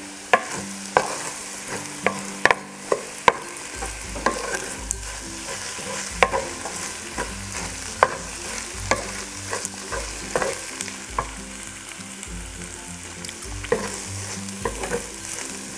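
Wooden spatula stirring and turning kimchi fried rice in a nonstick frying pan, knocking against the pan at irregular intervals over a steady sizzle of the rice frying.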